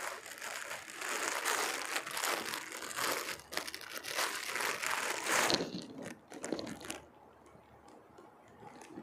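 Clear plastic bag crinkling and rustling as a folded shirt is worked out of it by hand; the crinkling dies away about two-thirds of the way through.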